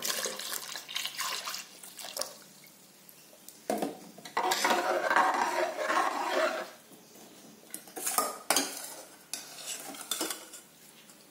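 Coconut milk poured into an open pressure cooker of cooked chana dal and sago, then a long steel ladle stirring and scraping in the pot, with a few sharp clinks of the ladle against the pot near the end.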